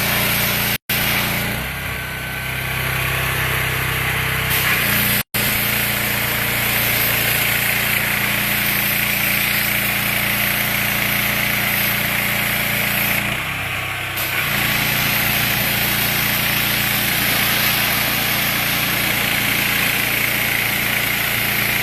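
Engine-driven pressure washer running steadily, its engine humming under the loud hiss of the water jet spraying a house's eaves; the spray hiss briefly dips about two-thirds of the way through.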